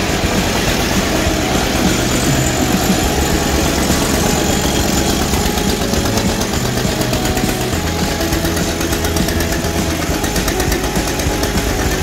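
12 HP Field Marshall Lister-type single-cylinder diesel engine running steadily at a low, even beat.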